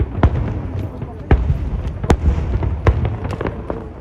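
Fireworks bursting: a string of sharp bangs at irregular intervals, about eight in a few seconds, over a continuous low rumble.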